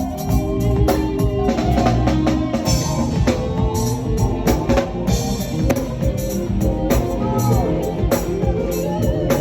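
Band music: a drum kit keeps a steady beat under sustained keyboard or organ chords, played as part of a sound check.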